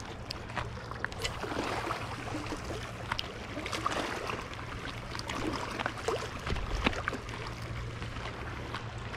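Outdoor wind and water noise: wind rumbling on the microphone over small waves lapping against a rocky seawall, with a few light clicks and scuffs scattered through.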